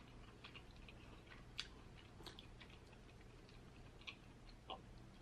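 Quiet chewing of king crab meat: faint, scattered small mouth clicks, with a few slightly louder ticks.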